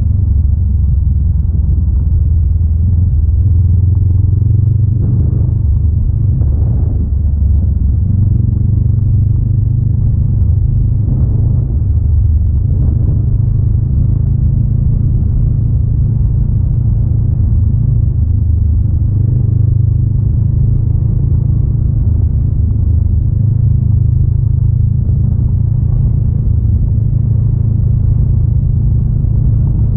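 Honda Rebel 500's parallel-twin engine running as the motorcycle is ridden along a dirt road. It is a continuous low drone whose note shifts slightly a few times as the throttle changes.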